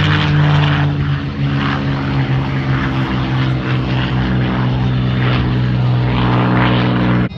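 Propeller airplane flying by with its piston engine running loud and steady, a strong low engine drone with a propeller buzz over it; it cuts off suddenly near the end.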